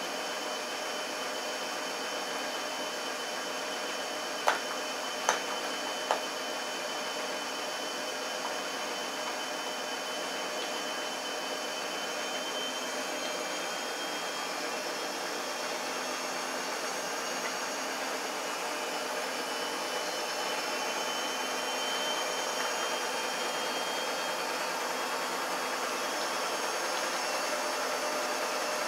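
Shar-Pei puppy crunching raw chicken ribs: three sharp crunches, a little under a second apart, about five seconds in, over a steady whirring drone.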